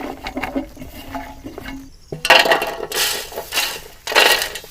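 Light clinks and taps of glass and kitchen utensils as ingredients are handled and put into a glass bottle. About two seconds in, this gives way to three loud bursts of harsh rattling, scraping noise.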